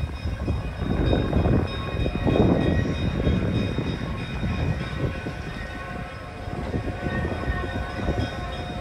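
EMD E5A diesel-electric passenger locomotive with its two 567 diesel engines, moving with its train on the track in a low rumble. It is loudest about one to three seconds in, with several steady high tones over it.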